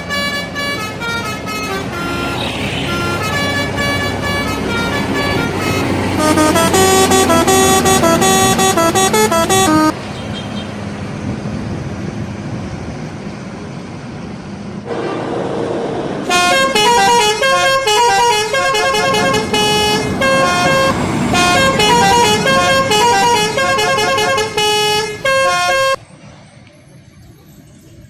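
Telolet horns on Indonesian buses playing fast melodic runs of notes, in two long bouts with bus engine and traffic noise between them. The sound drops much quieter about two seconds before the end.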